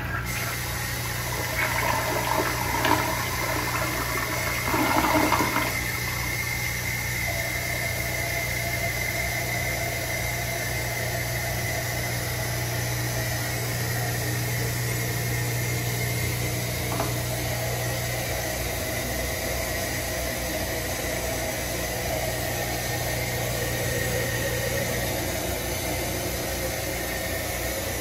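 1984 Mansfield Imperial toilet finishing its flush, with uneven swirling and gurgling water in the bowl for the first few seconds. Then the tank refills through its Fluidmaster 400 fill valve with a steady hiss.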